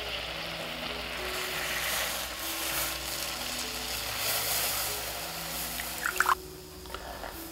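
Starch-and-water slurry poured from a cup into a stainless pan of hot, bubbling soy-sauce glaze, the liquid splashing and running into the sauce; the pouring noise stops about six seconds in.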